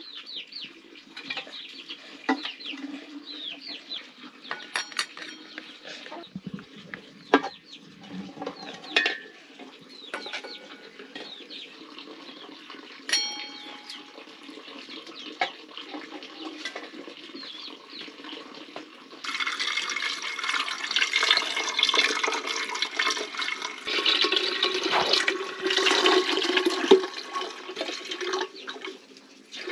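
Water poured from a steel jug into a metal kettle. The pouring starts suddenly about two-thirds of the way through and runs for about ten seconds, after scattered light clicks of metal handling.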